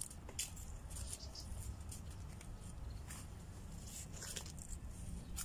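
Scattered soft rustles and crackles of hands handling strawberry plants, soil and a planter box, over a steady low rumble.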